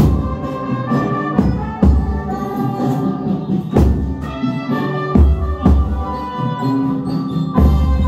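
Fuzileiro bass drum struck with soft felt mallets, a handful of deep, unevenly spaced strokes, played along to recorded band music with sustained pitched notes.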